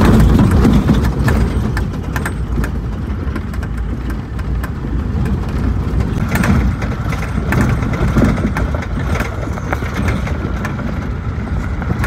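A vehicle driving over a rough dirt road: steady engine and road rumble with frequent short knocks and rattles from the bumps.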